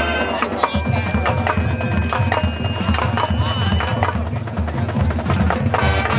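High school marching band playing live: brass holding chords over bass notes and a steady stream of drum and percussion strikes, with a loud percussion hit near the end.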